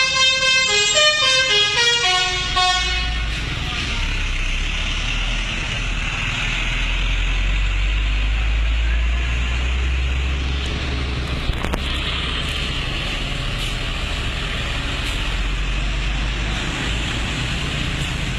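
Telolet musical bus horn playing a quick tune of stepped notes for about the first three seconds, then giving way to a steady low vehicle rumble with a hiss.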